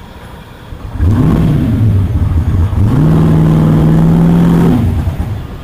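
Turbocharged small-block Ford V8 revving: a quick blip about a second in, then held at a higher, steady pitch for about two seconds before dropping back.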